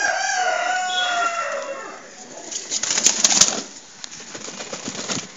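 A rooster crows once, a wavering call of about two seconds that falls at its end. About two and a half seconds in comes a loud burst of pigeons' wings flapping.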